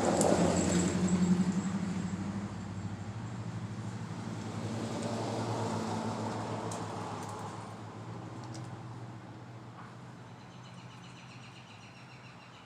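A motor vehicle's engine running nearby, loudest at first, swelling again briefly, then fading away as it passes.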